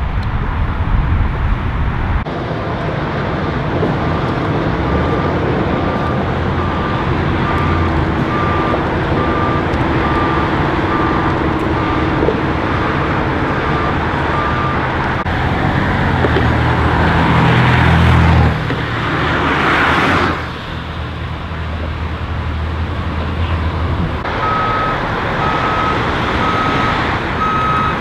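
Steady freeway traffic noise with a vehicle's reversing alarm beeping at an even pace through much of it. Around the middle a vehicle passes close, swelling louder before the sound cuts off abruptly.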